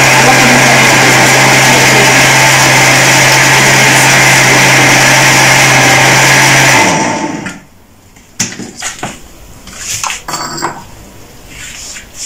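Electric countertop blender running steadily at full speed, blending avocado, banana and milk into a thick smoothie. It is switched off about seven seconds in and spins down, followed by a few light knocks and clatter as the blender jug is handled.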